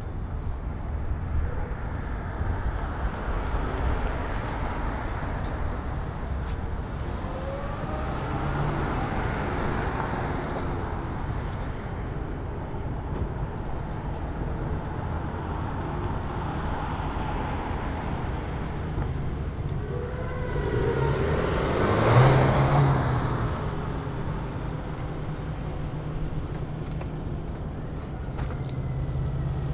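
Street traffic: cars passing on a city street. One goes by about a third of the way through, and a louder, closer one about two-thirds through.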